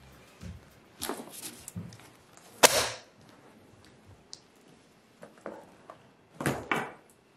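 A handbag being opened and rummaged, then a stack of papers slapped down flat onto a wooden desk with one loud, sharp smack about two and a half seconds in. A few small clicks follow, and two short bursts of rustling near the end.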